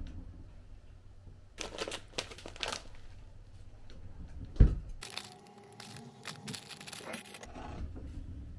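Plastic bag of sliced dried red chilies crinkling and rustling as it is handled, in two bouts, with a single dull thump about halfway through.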